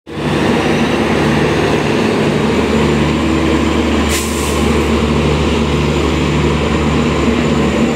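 Steady, loud diesel engine drone of a departing passenger train as its coaches roll slowly past, with a short hiss of released air about four seconds in.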